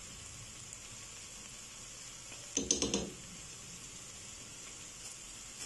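A quick cluster of four or five light clinks about three seconds in, a spoon knocking as a spoonful of ground ginger goes into the pot, over a faint steady hiss.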